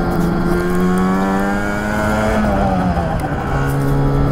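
Lambretta TargaTwin 275cc twin-cylinder two-stroke scooter engine pulling under throttle, its note rising for about two and a half seconds, then dropping and settling into a steady lower note for the last second or so.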